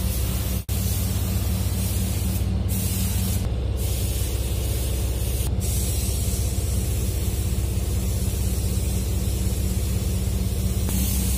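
Steady loud hiss over a constant low machine hum, like air and ventilation or compressor noise in a working body shop. It drops out for an instant under a second in.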